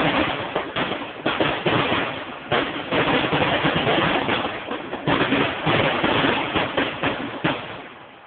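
Fireworks finale barrage: dense, overlapping firework bursts and crackle in rapid succession, fading away in the last second.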